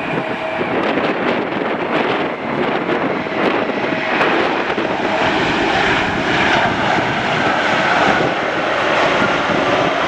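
The twin jet engines of a Delta Boeing 767 running at takeoff power during its takeoff roll. The sound is a loud, steady rushing that swells in the first second or so, with a high whine coming up through the middle.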